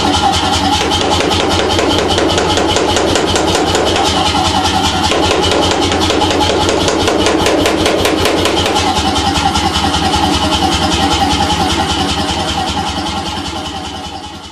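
C41 pneumatic forging hammer running, its ram striking a red-hot bar on the lower die in a rapid, steady train of blows as the bar is drawn out to a taper. The sound fades away over the last two seconds.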